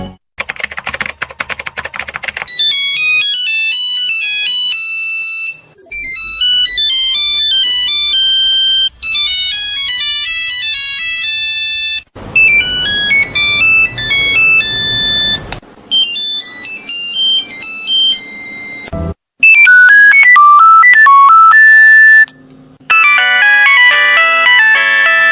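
A run of Nokia mobile phone ringtones, one after another: short beeping melodies of high-pitched notes, each lasting a few seconds before the next begins. The last couple of tunes sit lower and sound fuller than the earlier ones.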